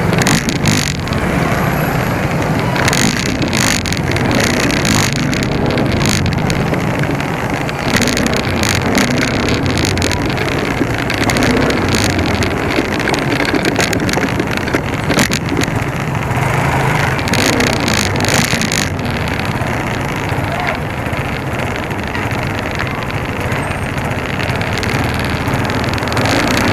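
A motor vehicle's engine running steadily on the move, with constant road and wind noise and occasional brief sharp knocks or gusts.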